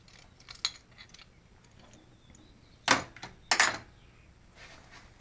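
Light metal clinks and clicks of tools and valve-train parts being handled during reassembly of the valve springs and keepers, with two louder metal clanks about three seconds in.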